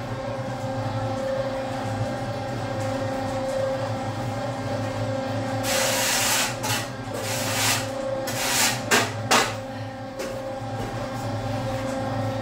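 Concrete mixer running with a steady motor hum, joined by several short rushes of gritty noise between about six and nine and a half seconds in.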